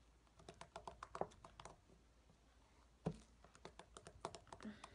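Homemade slime being pressed and kneaded by fingers on a tabletop, making faint, irregular sticky clicks and pops in quick clusters.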